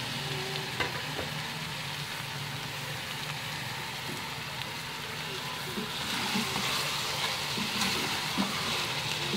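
Raw chicken pieces sizzling in hot oil and ginger-garlic paste in a steel pot. From about six seconds in, the sizzle grows louder as a wooden spatula turns the pieces, with a few light knocks and scrapes.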